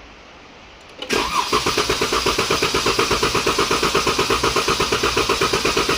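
2014 Dodge Durango's 3.6 L V6 being cranked over by the starter without firing, a fast even chugging that begins about a second in. It is a relative compression test, and the engine has a compression problem the mechanic places on probably cylinder 4.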